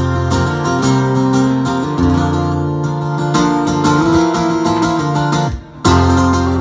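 Solo acoustic guitar playing an instrumental break in a folk ballad: a continuous run of picked notes and strums, stopping for a moment about five and a half seconds in before carrying on.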